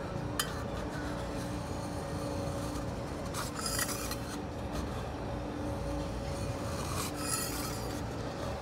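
Metal spatulas scraping across the frozen steel plate of a rolled ice cream griddle, working the ice cream base. The scrapes come in louder strokes about three and a half and seven seconds in, over a steady low hum.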